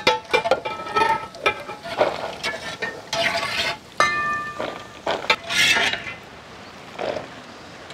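Steel perforated ladles clinking and scraping against a large metal uruli and a steel plate as fried cashews are scooped out and tipped onto the plate, the nuts rattling onto the metal. Many sharp clinks, some ringing briefly, thinning out after about six seconds.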